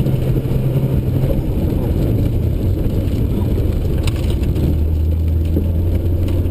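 Rally car's engine and drivetrain heard from inside the stripped, caged cabin while driving a stage flat out, with dense road and gravel noise. The engine note drops to a lower, steadier tone about two-thirds of the way through, and a few sharp ticks come about four seconds in.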